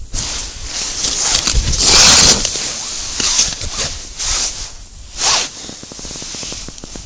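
Rustling of winter clothing close to the microphone: a long loud burst about two seconds in, then three shorter bursts about a second apart.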